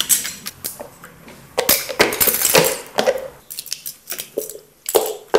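Scissors snipping through plastic spoon handles and plastic spoons clinking on a tabletop: an irregular run of sharp clicks and snaps.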